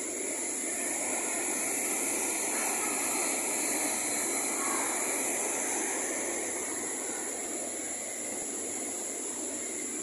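Rushing white water of a waterfall and its rapids: a steady, even noise with no breaks.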